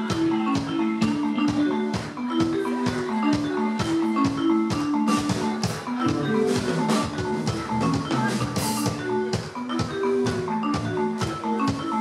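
Band music: a repeating melody of short, struck-sounding notes over a steady drum beat.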